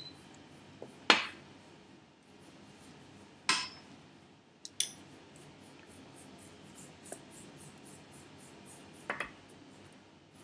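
Gel pots and a faceted glass dish being picked up and set down on the table: four short, sharp clinks and knocks, the loudest about a second in, with quiet between them.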